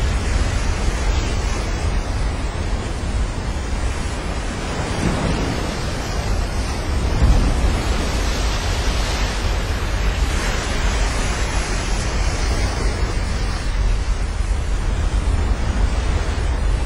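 Ocean surf breaking in a steady wash, with wind buffeting the microphone in a low rumble; the surf swells louder for a few seconds around the middle.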